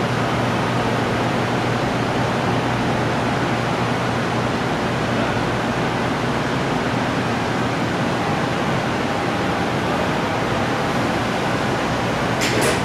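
Steady rushing air from the clean room's ventilation, positive-pressure airflow pushed through HEPA filters across the ceiling, over a low steady hum. A brief click near the end.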